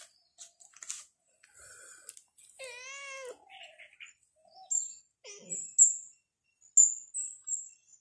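A domestic cat meows once, a drawn-out call with a wavering pitch about two and a half seconds in. Short high bird chirps follow in the second half.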